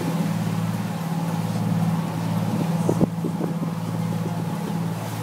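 Fishing boat's engine running steadily underway, a low even drone with wind and sea noise over it. A single sharp knock about three seconds in.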